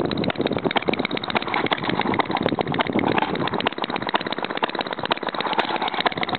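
Single-cylinder model hit-and-miss gas engine (RMC Type B) running, with a fast, even run of clicks.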